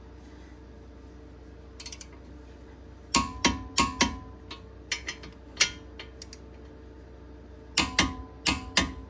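Torque wrench clicking on the caliper bracket bolts as they are tightened to 98 foot-pounds. There are two quick clusters of sharp metallic clicks, one about three seconds in and one near the end, with a few single clicks between them.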